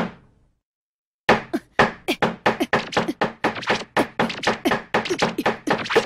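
Hammer driving nails into a wooden door frame: one blow, then after about a second of silence a rapid run of blows at about four a second.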